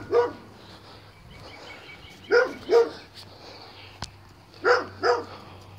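A dog barking in pairs: three double barks about two seconds apart.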